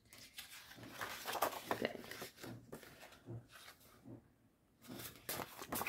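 Sheets of patterned slimline craft paper rustling and sliding against each other as they are handled, in irregular bursts, with a brief lull a little after four seconds.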